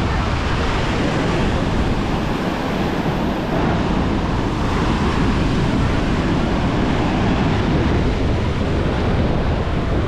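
Ocean surf breaking and washing up a sandy beach as a steady wash of noise, with wind on the microphone.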